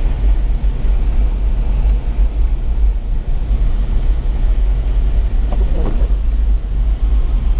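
Steady low rumble, with a faint voice briefly about five and a half seconds in.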